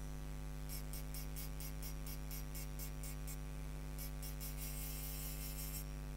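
Small stone burr in a rotary glass-engraving tool grinding the surface of a wine glass in quick short strokes, about four or five a second, with a brief pause midway. The grinding stops near the end, over a steady electric hum.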